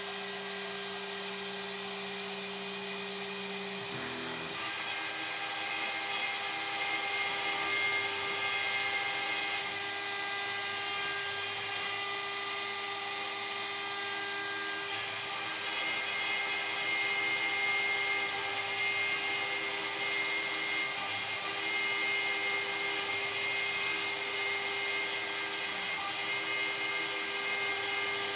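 CNC router spindle running at high speed while milling acrylic sheet: a steady, high-pitched whine made of many fixed tones over a hiss. About four and a half seconds in, a lower hum drops out and the sound gets brighter and slightly louder.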